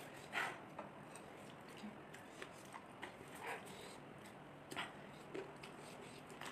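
Faint sounds of noodles being eaten without hands: soft slurps, breaths and small clicks, with a few short bursts standing out over low room noise.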